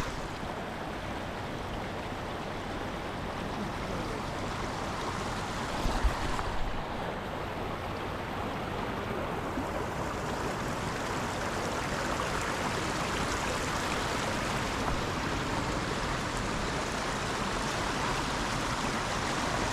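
Steady rush of a stream with small waterfalls, water pouring over icy rock, with one brief knock about six seconds in.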